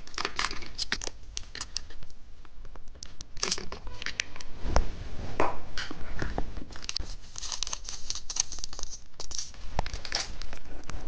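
Plastic candy packaging being handled, crinkled and torn open, with irregular crackling rustles and a few louder knocks.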